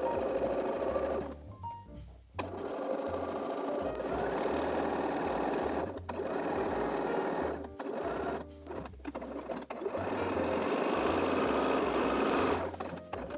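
Electric sewing machine stitching through loosely woven linen, running in several stretches broken by short pauses.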